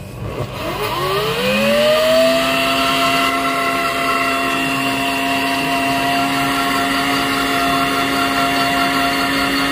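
Countertop electric blender motor starting up, its whine rising in pitch over about two seconds, then running steadily at speed as it blends apple into juice.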